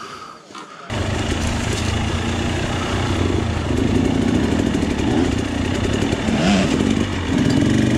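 Dirt bike engine running while riding along the trail, loudest from the camera rider's own bike, starting abruptly about a second in.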